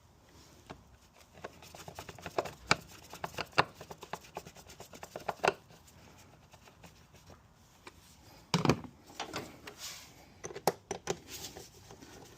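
Scattered plastic clicks, knocks and rubbing from an engine air filter housing being handled and closed up, with a louder knock about two-thirds of the way through and a quick run of clicks near the end.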